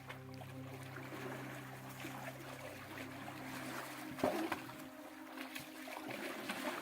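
Faint trickling and splashing of water from a natural spring, under a steady low hum that cuts off about four seconds in with a brief knock.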